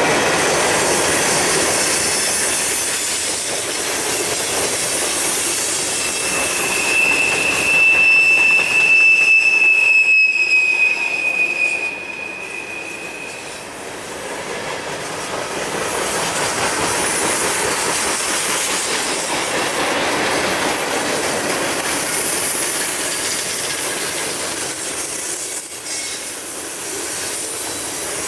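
Freight cars of a Norfolk Southern mixed freight train rolling past, with steel wheels running on the rails. From about six seconds in to about thirteen seconds, a high, steady wheel squeal rings out over the rolling noise.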